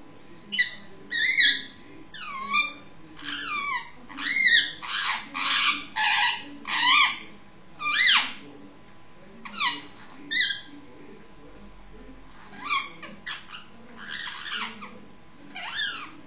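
Young Indian ringneck parakeet calling: a run of short, sharp calls, many sliding down in pitch, about two a second. A pause of a couple of seconds past the middle, then a few more calls.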